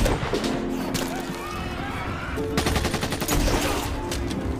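Film-soundtrack gunfire: a sudden loud shot right at the start, then rapid automatic fire near the middle, with voices under it.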